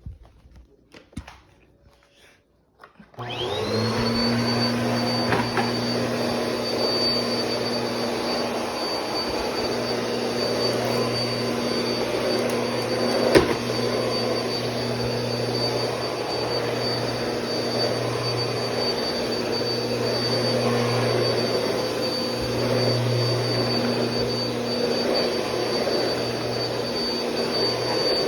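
Bissell PowerForce Compact Turbo upright vacuum switched on about three seconds in, its motor whine rising quickly to a steady high pitch, then running steadily while vacuuming. A single sharp knock about halfway through.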